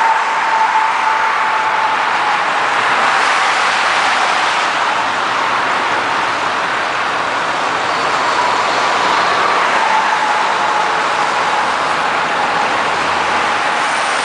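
Highway traffic: the steady noise of tyres and engines from a dense stream of cars, pickups, tow trucks and semi trucks, with a faint whine that slowly drops in pitch, twice.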